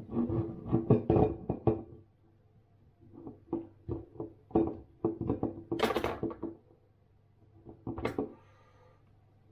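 A knife point jabbing and prising at the stuck cap of a soy sauce bottle: a quick run of small knocks and clicks, a pause, more taps, then a sharper crack about six seconds in and another about eight seconds in.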